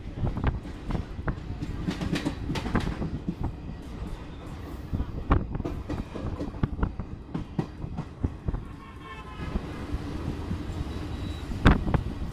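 Passenger train running, heard from inside the carriage: the wheels clatter over the rail joints in a dense run of knocks over a steady rumble.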